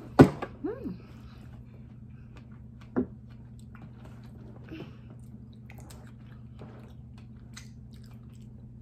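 Close-up eating sounds: a loud wet smack as a piece of fruit is popped into the mouth, a brief hummed sound just after it, then quiet chewing with a single sharp click about three seconds in, over a steady low hum.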